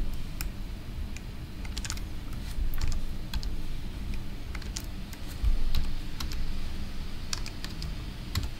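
Typing on a computer keyboard: irregular, quick key clicks as a serial number or license key is keyed in.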